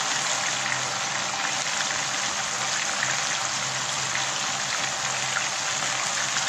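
Chicken shashlik sticks deep-frying in hot oil in a pan: a steady sizzle with small crackles.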